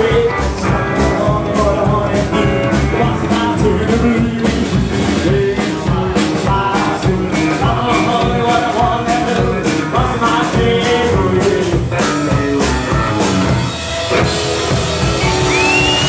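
Rock-and-roll band playing live, with a slapped upright double bass, electric guitar, drum kit and singing. Near the end, a high whistle-like tone rises and then slowly falls.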